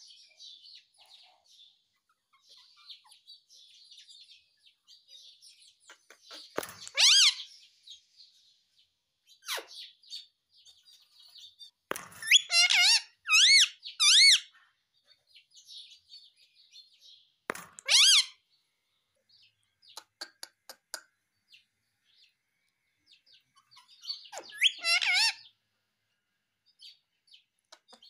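Indian ringneck parakeet vocalizing: a handful of loud, short, shrill calls, each rising and falling in pitch, with three in quick succession about halfway through, and soft chattering between them.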